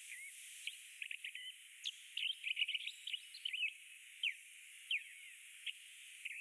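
Small birds chirping, many short high chirps and quick pitch glides, thickest in the middle and thinning towards the end, over a faint steady hiss.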